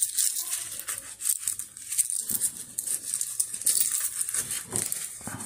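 A small coin purse being opened and handled by hand: a dense run of light rustling and clicking.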